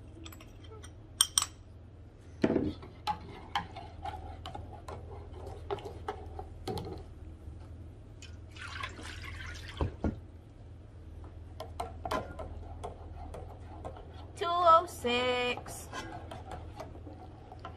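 A long metal spoon stirring lye solution in a glass measuring cup, clinking against the glass again and again, with a couple of duller knocks.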